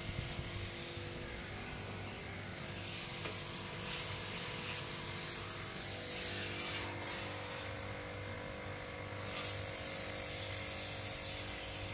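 Pressure-washer pump running with a pulsing hum while its water jet hisses onto a split-AC outdoor unit's condenser coil, the spray hiss stronger through the middle of the stretch.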